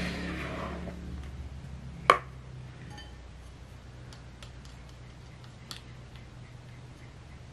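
Spatula folding thick sponge-cake batter in a plastic bowl for about the first second, then a single sharp knock about two seconds in, followed by a few faint ticks over a low steady hum.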